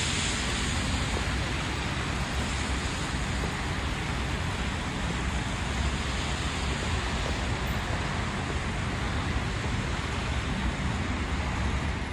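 Steady city street traffic noise: cars running on a wet road.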